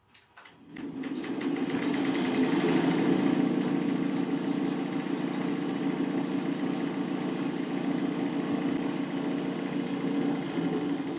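Electric motor of a benchtop vibration training rig starting up and driving its shaft with rotor discs: a mechanical hum that builds up over the first second or two after the switch-on, then runs steadily with a fast, even rattle, and begins to fade near the end.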